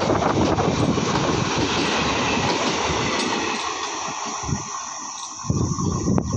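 Indian Railways passenger coaches running past at speed, wheels rattling over the track. The noise drops away as the last coach goes by about three and a half seconds in and recedes, leaving a fading hiss. A low buffeting rumble rises again near the end.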